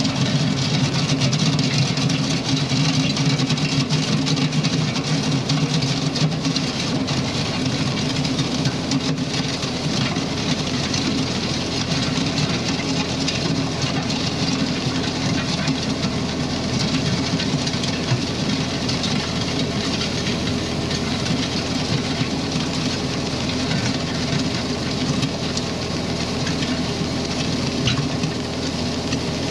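Ford 8N tractor's four-cylinder engine running steadily under load on its newly replaced carburetor, with the steel box blade behind it scraping and grinding through gravel. The engine note is strongest for the first several seconds.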